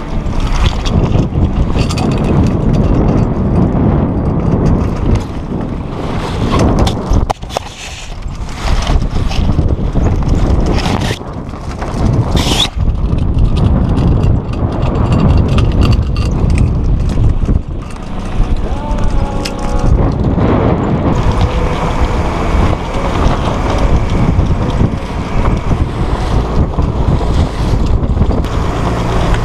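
Strong wind buffeting the microphone on a small sailboat, with water splashing along the hull. A few sharp knocks come through, about seven and twelve seconds in.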